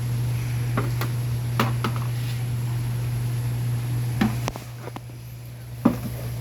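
A steady low machine hum with a few scattered knocks and clicks. The hum drops off sharply about four and a half seconds in.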